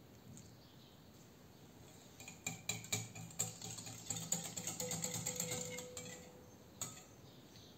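A wire whisk beating yogurt and tahini in a glass bowl: its wires tick and scrape against the glass for about four seconds, starting a couple of seconds in, then one last click near the end.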